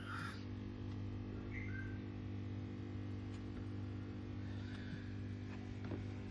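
Steady low mechanical hum with an even buzzing tone, and a couple of faint high chirps about one and a half seconds in.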